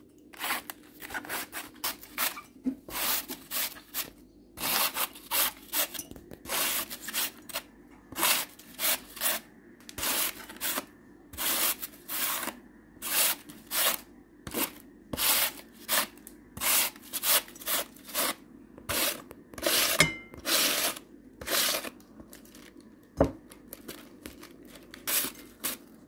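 Young cabbage being shredded on a hand-held stainless-steel cabbage shredder: repeated rasping strokes, about two a second, as the blades slice through the leaves.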